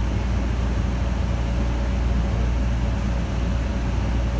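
Steady low rumble of a 2020 New Flyer Xcelsior XN40 transit bus running, heard from inside the cabin: its Cummins L9N natural-gas engine and drivetrain.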